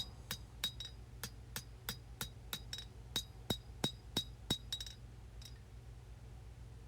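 Hand hammer striking hot 1095 high-carbon steel on the anvil while drawing out a knife point: faint, ringing blows at about three a second, stopping about five seconds in.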